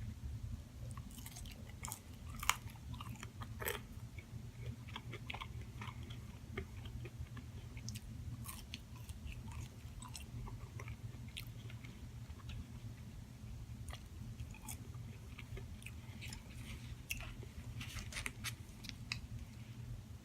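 Close-up chewing and biting of fast food, with many small wet mouth clicks and smacks, over a steady low hum.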